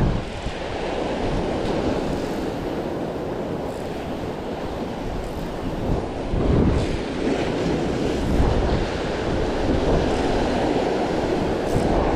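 Rough ocean surf washing and breaking over a rocky shoreline, swelling louder a few times, with wind buffeting the microphone.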